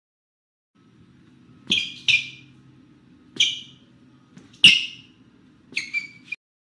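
Shoe squeaks: about six short, high-pitched squeaks in quick, irregular succession over a faint low hum.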